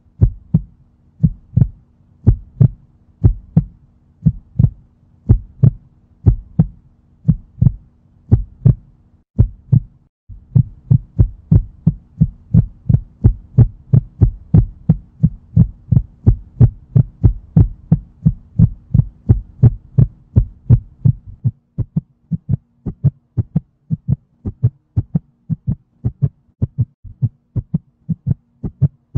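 Heartbeat sound effect: loud paired thumps, about one a second, that speed up to about two a second around ten seconds in, over a faint steady hum.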